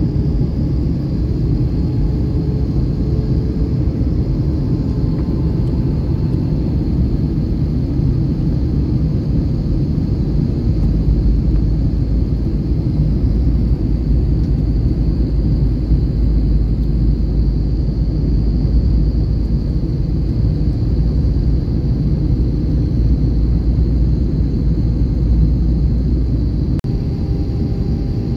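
Airbus A321 cabin noise on approach: a steady low rumble of engines and airflow. The deepest part of the rumble grows stronger about a third of the way in and eases off shortly before the end.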